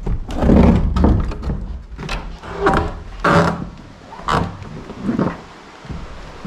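Footsteps thudding and knocking on old wooden floorboards, heaviest in the first second or so, then a few more scattered knocks.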